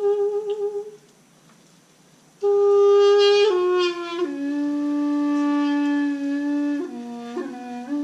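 Balaban, a double-reed folk wind instrument, playing a slow melody of long held notes. A wavering note breaks off about a second in. After a short pause it comes back and steps down twice to a low note held for a couple of seconds, dipping lower briefly near the end.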